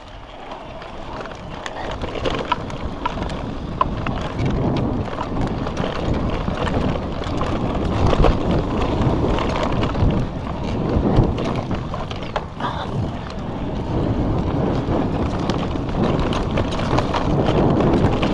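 Electric mountain bike riding fast over a dirt forest trail: knobbly Maxxis Magic Mary tyres rolling and the bike rattling, with frequent sharp knocks from bumps, and wind buffeting the handlebar-mounted microphone. It builds up over the first couple of seconds as the bike gathers speed, then stays steady.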